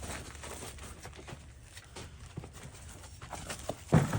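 Shuffling footsteps and soft handling knocks as two people carry a heavy lathe motor, with a louder short low sound about four seconds in.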